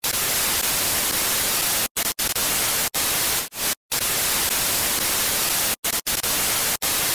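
TV static sound effect: a steady hiss of white noise that cuts out to silence for a moment several times, the longest gap a little under four seconds in.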